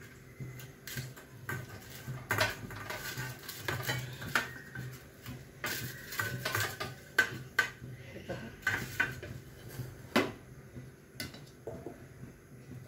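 Stainless steel plate and bowls being handled on a countertop: irregular clinks and scrapes of steel on steel and on the counter as hands rub oil over the plate and shift it. A few sharper clinks stand out along the way.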